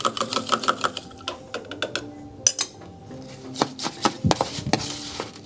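Bar spoon churning crushed ice in a metal julep cup: rapid clinking and scraping with a light metallic ring, slowing after about a second to scattered clinks and knocks. The ice is being agitated to chill the drink and frost the cup.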